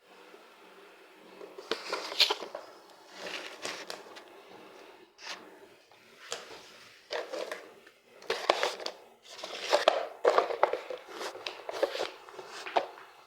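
Irregular handling noises: rustling and crinkling with light knocks and sharp clicks, coming in uneven bursts, as work goes on around the washing machine.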